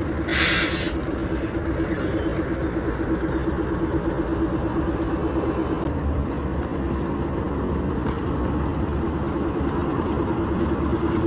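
Steady motor vehicle drone with a held tone running throughout, and a short loud hiss about half a second in.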